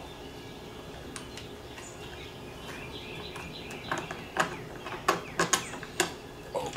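Handling clicks and knocks of the old carburetor being worked off a Stihl MS210 chainsaw: quiet at first, then about half a dozen sharp clicks and taps from roughly four to six seconds in.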